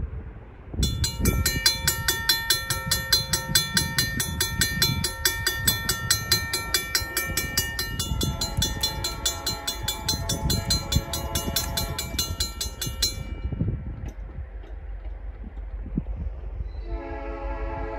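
Railroad crossing warning bell, a Safetran mechanical bell, ringing in rapid repeated strikes as the crossing activates. It starts about a second in and cuts off suddenly about thirteen seconds in, once the gates are down. Near the end a locomotive horn starts sounding.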